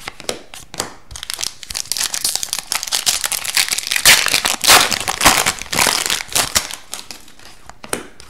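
An Upper Deck Series Two hockey card foil pack being torn open and crinkled by hand, loudest about halfway through. Light clicks of cards being handled come at the start and near the end.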